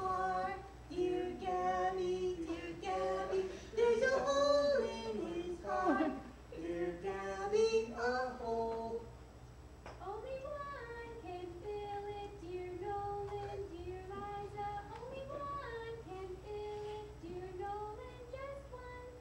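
High voices, a child's or a woman's, singing a song. The singing is louder for roughly the first half, then continues more softly from about ten seconds in.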